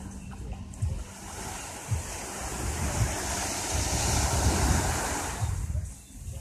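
Small waves breaking and washing up on a sandy beach, one wash swelling about halfway through and fading away near the end, with wind buffeting the microphone.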